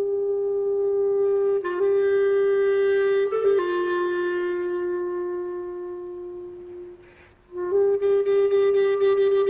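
Solo woodwind instrument playing a slow melody of long held notes as film title music; one long note fades away about seven seconds in, and a new phrase begins after a short pause.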